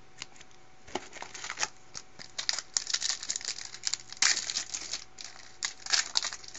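Wrapper of a 2012 Bowman Platinum trading-card pack crinkling and tearing as it is handled and opened. Irregular crackles start about a second in and are loudest a little after four seconds and again near six seconds.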